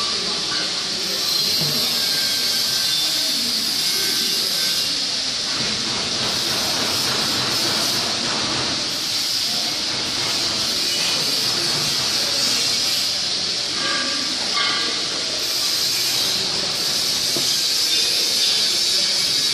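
A steady, even hiss that holds at one level throughout, with faint scattered clatter beneath it.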